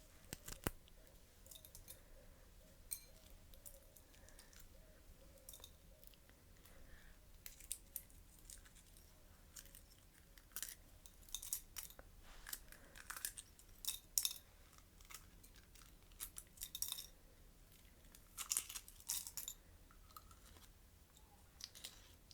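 Close-miked eating: a person chewing and crunching food, with short clicks and crackles at irregular intervals, coming more often in the second half.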